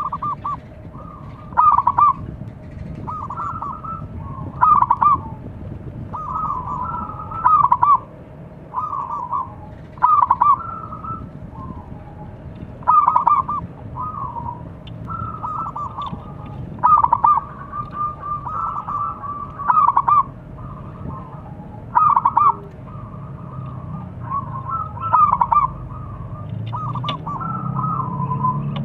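Zebra dove cooing: short, rapid, stuttering phrases of notes repeated about every two to three seconds, with softer notes in between. This is the local perkutut's calling song, used as a lure to draw in rival doves.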